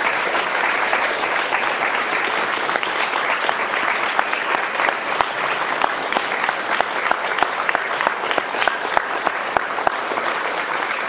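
Audience applauding: many people clapping steadily, with single claps standing out more distinctly in the second half.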